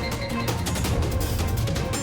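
Background action music with a steady driving beat and heavy bass.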